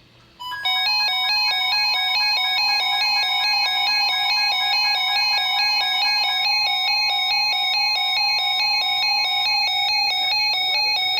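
Electronic emergency-alert attention tone: several high, fixed-pitch beeps switching on and off in a fast, even, repeating pattern, starting about half a second in.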